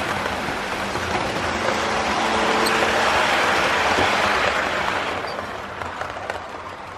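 Model train running past close by: a steady rushing rumble of wheels on track and motor, swelling to its loudest midway and fading away near the end.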